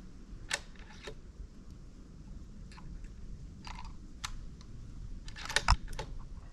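Light mechanical clicks and knocks, as of hands working small metal and plastic gear, scattered a second or so apart, with a quick cluster of sharper clicks about five and a half seconds in.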